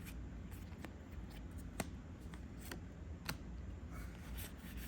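Trading cards being handled and flipped through: a soft rustle with a few sharp card snaps.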